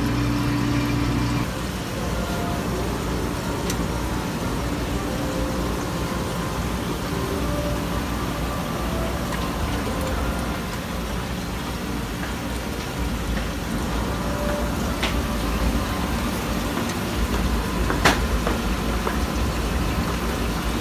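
Steady low hum and noise of a shop's fish-tank room, with aquarium air pumps and filters running and air stones bubbling in the tanks. A low hum drops out about a second and a half in, and there are a few faint clicks.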